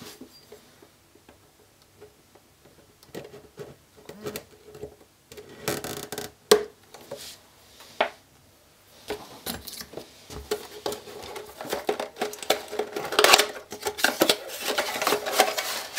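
Small cardboard CPU retail box being handled and opened: scattered taps and sharp clicks of cardboard, then from about halfway a denser rustling and scraping as the flaps are pulled open, loudest near the end.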